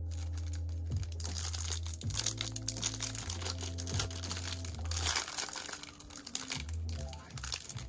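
Crinkling of plastic trading-card pack wrappers and sleeves as hands handle the cards and work at a pack, a dense crackle throughout. Background music with sustained low notes runs underneath.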